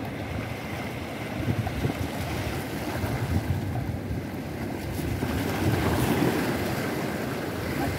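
Sea surf washing against the rocks of a jetty, mixed with wind buffeting the microphone: a steady rush that swells louder around six seconds in.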